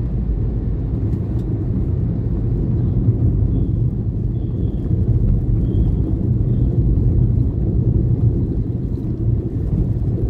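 Steady low rumble of a moving road vehicle travelling through traffic.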